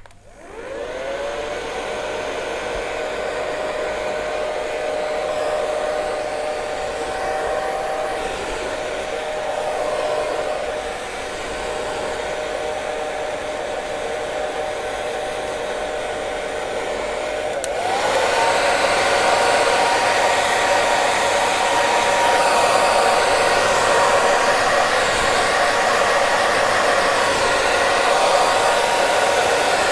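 Hair dryer starting up, its motor whine rising as it spins up, then running steadily with a rushing of air. About eighteen seconds in it steps up to a higher, louder speed setting, the whine jumping up in pitch.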